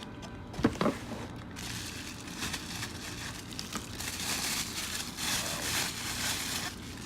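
Packaging rustling and crinkling as a camera kit lens is unwrapped and taken out of its box, with a couple of sharp knocks about a second in.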